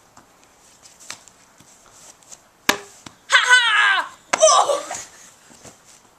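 A single sharp knock, then a boy's voice in two short, high, wavering vocal outbursts about a second apart, with no words in them.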